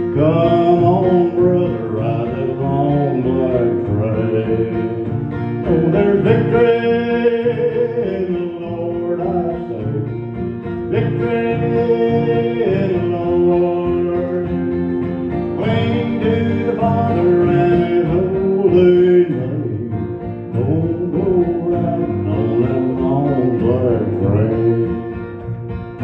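Live country song played on acoustic guitar and electric bass, with a man singing over it in long phrases.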